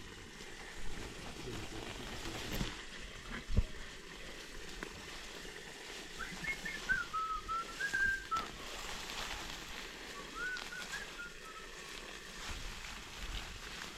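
Short, wavering whistled phrases at a middle pitch, one about six to eight seconds in and a shorter one near eleven seconds, over a few dull knocks early on.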